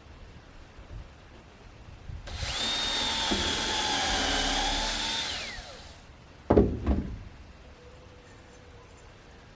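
Power drill running for about three seconds, its pitch sagging a little partway through and then falling as it stops. Two sharp knocks follow about a second later.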